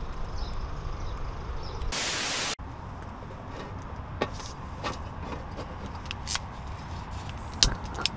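Steady outdoor noise with a low rumble. About two seconds in, a loud burst of hiss lasts about half a second and cuts off abruptly. A few faint clicks follow.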